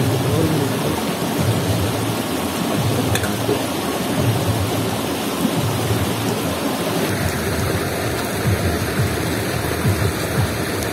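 Shallow river rushing steadily over rocks, an even rushing noise with a low rumble underneath.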